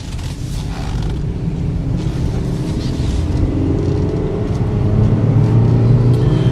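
2013 Chevy Equinox's 2.4-litre four-cylinder engine and road noise heard from inside the cabin, the engine note rising gently and growing louder as the car picks up speed.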